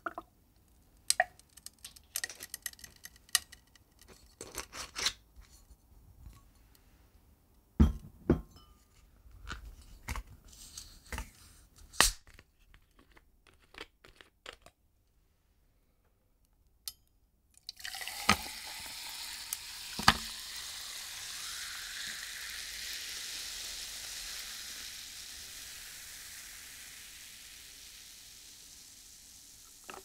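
Ice cubes in a glass of whisky cracking and clinking in irregular sharp snaps, with drips. After a few seconds of near silence past the middle, soda water pours in with a hiss that rises in pitch as the glass fills, then fizzes, slowly fading.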